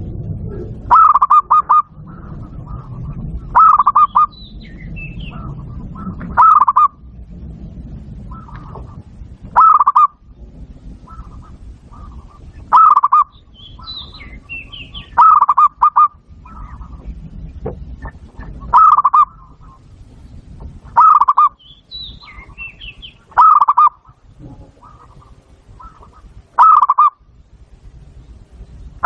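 Zebra dove (perkutut) singing, a Bangkok-type bird: a short, rapid, stuttering coo repeated about every two to three seconds, eleven times. Fainter, higher chirps sound between some of the coos.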